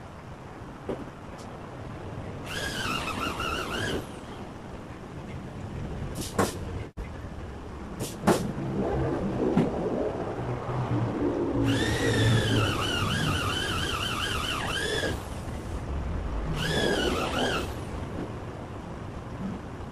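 Handheld power drill whining in three bursts, a short one, a longer one of about three seconds and a brief one near the end, its pitch wavering as it runs. Sharp clicks and knocks come in between over a low workshop rumble.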